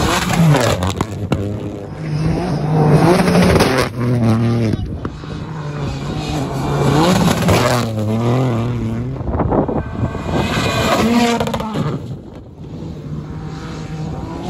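Rally cars at full throttle on a gravel stage, engines revving hard and the pitch rising and dropping with each gear change as they approach and pass. Gravel and stones spray loudly as a car lands from a jump.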